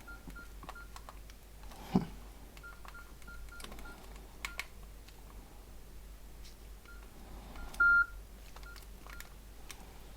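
Nokia 6680 keypad tones: runs of short, high single-pitch beeps as keys are pressed while the phone is tested, with the clicks of the keys. One longer, louder beep comes about eight seconds in.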